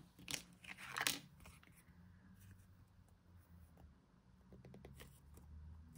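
Faint handling sounds of small paper craft pieces: a brief rustle and a couple of light taps near the start, then a few soft ticks, over a faint low hum.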